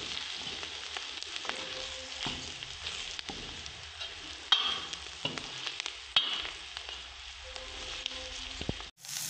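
Chopped onion, garlic, ginger and green chillies with ground spices sizzling in hot ghee in a kadhai while a metal ladle stirs them, with a few sharp clicks of the ladle against the pan. The masala is being fried (bhuna) before the tomatoes go in.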